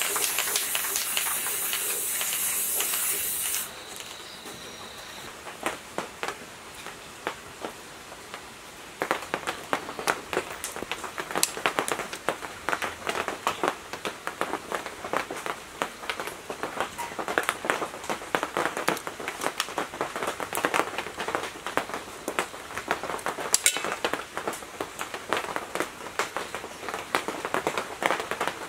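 Aerosol spray paint hissing steadily and cutting off suddenly a few seconds in. After a quieter gap, scissors snip and scrape at electric motor lead wires, a long run of irregular sharp clicks.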